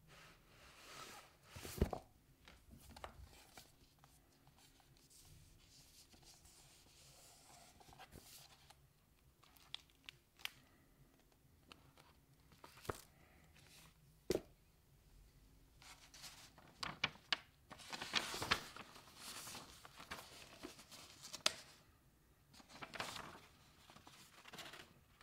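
Quiet paper handling: sketchbook pages being turned and rustled, with scattered small knocks and clicks, a sharp knock about two seconds in, and longer swishes of paper about three quarters of the way in.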